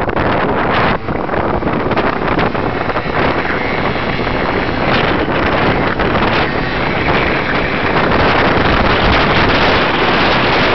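Wind buffeting the microphone of a moving scooter, a loud, steady rush mixed with the scooter's engine and road noise.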